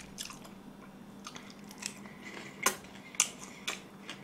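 A person chewing a mouthful of Chinese-style curry noodles close to the microphone. There are soft wet mouth sounds with several sharp smacking clicks, the loudest in the second half.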